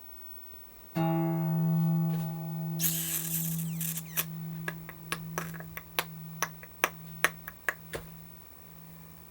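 A single low note rings out abruptly about a second in and holds steadily, wavering slightly, like a plucked string. A brief rustle follows, then a run of about a dozen sharp clicks, roughly three a second.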